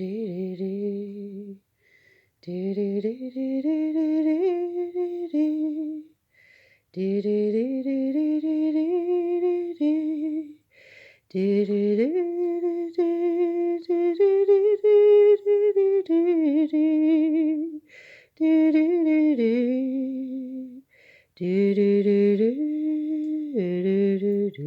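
A woman humming a slow, lullaby-like melody in six phrases of a few seconds each, with short breaths between them.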